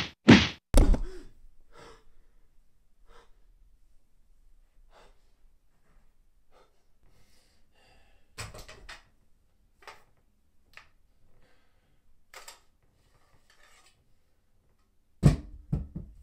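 A few sharp knocks right at the start, then a quiet room with sparse faint knocks and rustles, and a short run of louder knocks near the end.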